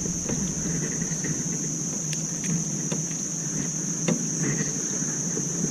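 Steady high-pitched drone of insects calling, with a low steady hum under it and a few faint clicks.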